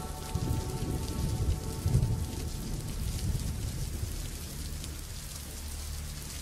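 Underwater ambience picked up by a camera in a waterproof housing: a dense, rain-like crackle with low, uneven rumbling of moving water, stronger in the first couple of seconds.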